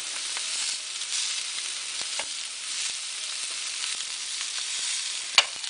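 Carrots and ground beef sizzling steadily in a hot frying pan, with a few light clicks and one sharp tap near the end.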